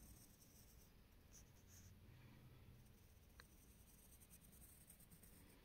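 Very faint scratching of a graphite pencil shading on paper, with a single light tick about three and a half seconds in.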